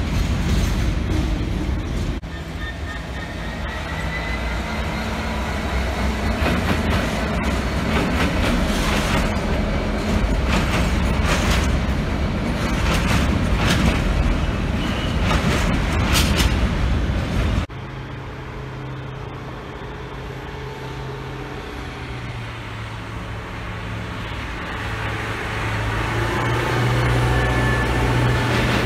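Freight train of blue box wagons rolling past, with repeated clicks and clatter from the wheels over the rails. After a sudden cut, a Colas Rail Plasser & Theurer 08-4x4/4S-RT track tamper runs past, its diesel engine a steady drone that grows louder near the end.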